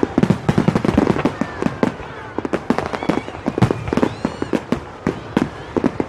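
Fireworks display: a dense, irregular string of bangs and crackling reports, several a second.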